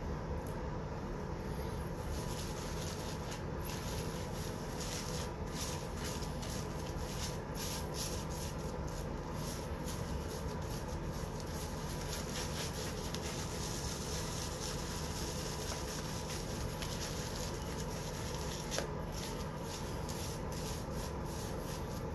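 Soft, intermittent rustling and rubbing of handling noise over a steady low room hum, with one sharp click near the end.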